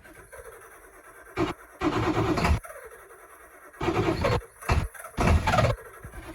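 7.3 Power Stroke V8 diesel cranking and catching on starting fluid, firing in five loud, uneven bursts of a fraction of a second each before dying back: a cold start without the block heater.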